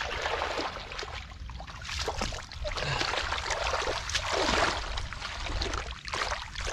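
Hands sweeping and splashing through shallow muddy water, in repeated surges every second or two.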